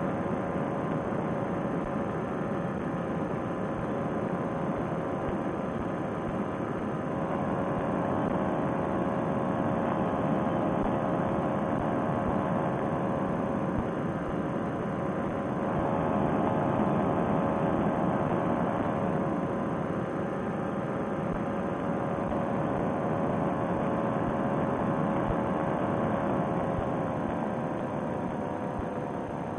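Paramotor trike's engine and propeller droning steadily in cruising flight, with small rises and dips in pitch and loudness about a quarter and a half of the way through as the throttle is eased.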